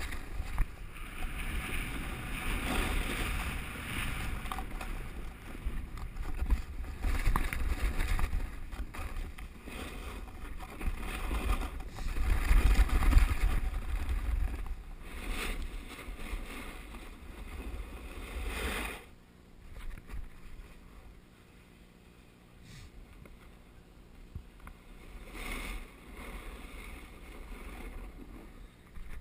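Wind rushing and buffeting over the action camera's microphone while sliding fast down a packed snow slope, with the hiss and scrape of the run over the snow. About two-thirds of the way through the rumble drops away sharply as the descent slows to a stop, leaving only a faint breeze.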